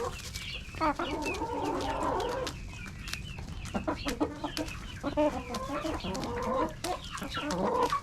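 A flock of chickens clucking and calling over one another as they peck at and fight over ears of corn, with short sharp taps and clicks throughout.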